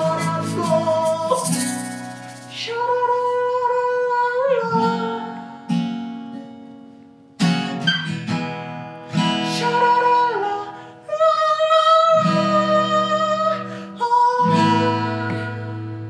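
Acoustic guitars strummed as accompaniment to a man singing a "sha-la-la-la" refrain. The strumming falls away twice and picks up again.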